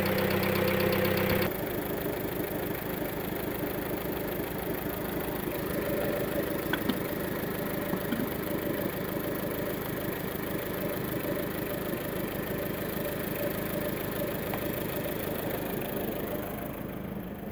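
Skoda Octavia 1.4-litre petrol engine idling just after start-up, with a light ticking from hydraulic tappets that have not yet filled with oil after the cylinder head rebuild. The tappet noise is expected to fade as the engine warms. The sound steps down in level about a second and a half in.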